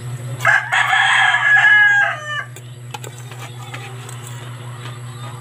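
A rooster crowing once, a single long call of about two seconds that falls away at the end, over a steady low hum.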